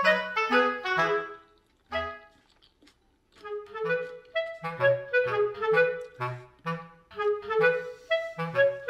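Background music: a light melody of short, separate notes that drops to a near-silent gap from about two to three and a half seconds in, then picks up again.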